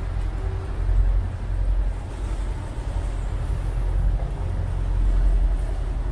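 Tour boat's engine running, a steady low rumble.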